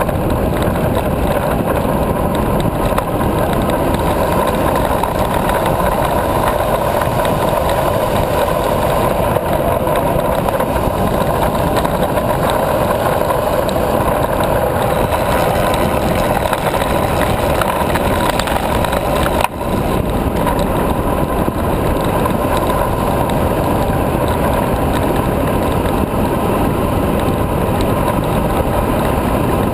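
Steady rush of wind over a bike-mounted GoPro and tyre noise from an M5 carbon high-racer recumbent bicycle on a fast downhill over asphalt. There is a momentary dropout about twenty seconds in.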